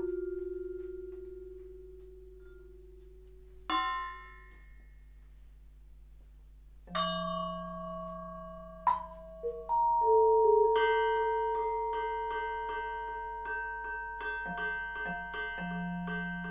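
Yamaha vibraphone played with mallets. A held note fades away, a chord is struck about four seconds in, then single notes ring on from about seven seconds, and in the second half a quick, even run of repeated strokes plays over the ringing tones.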